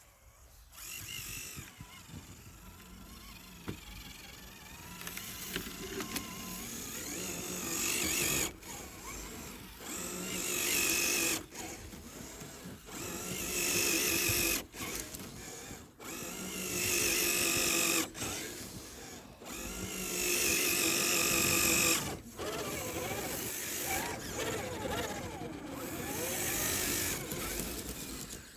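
Electric motor and gearbox of a radio-controlled scale crawler whining in repeated bursts of throttle, one to two seconds each. Many of the bursts cut off sharply, and the pitch rises and falls with the throttle.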